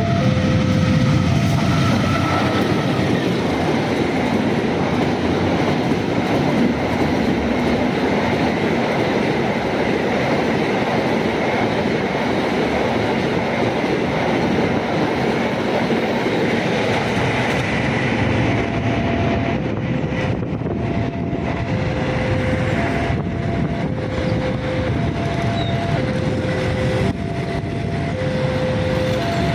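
A train running fast over a level crossing, its wheels and rails making a loud, steady rumble throughout. From about two-thirds of the way in, the crossing's warning signal sounds over it as alternating high and low tones, repeating.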